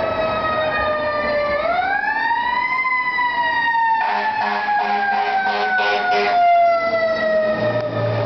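Fire truck's Federal Q2B mechanical siren winding up in pitch, then coasting slowly down. A horn sounds over it for about two seconds midway, and engine rumble comes in near the end as the truck passes.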